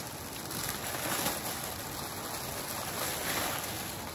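Faint rustling and handling of gift packaging over a steady background hiss.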